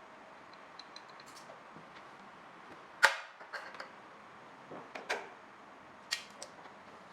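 A few sharp clanks and clicks of tools and parts being handled during motorbike engine work. The loudest is about three seconds in, followed by smaller knocks a few seconds later.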